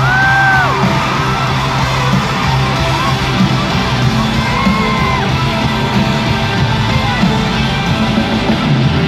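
A pop-rock band playing live over a sustained low bass note, with fans in the crowd screaming and whooping over the music, one high scream standing out at the start.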